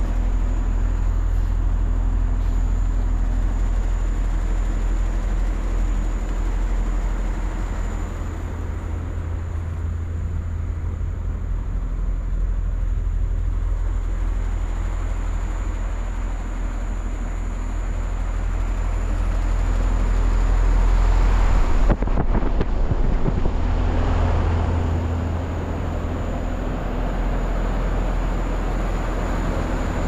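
LG 8.5-ton heat pump outdoor unit running: its fans and compressor make a steady low drone with a thin high whine above it. About 22 seconds in there is a brief rustle on the microphone.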